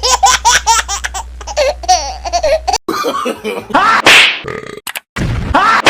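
Rapid, high-pitched laughter for nearly three seconds, followed by a few short, loud vocal outbursts.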